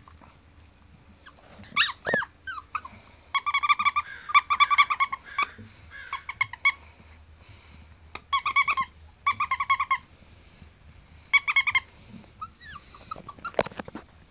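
Squeaker in a plush toy squeaking in several quick runs of short, same-pitched squeaks.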